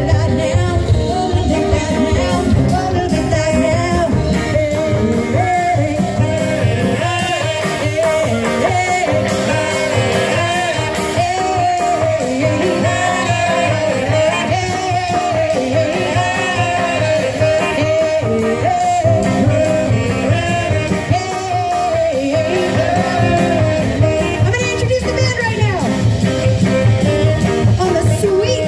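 Live band playing rock and roll: a woman singing over electric guitars, upright bass and saxophone.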